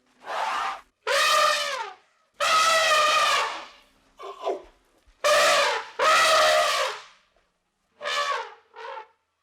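A series of about eight drawn-out animal calls, each half a second to a second long, several dropping in pitch at the end, separated by short silences.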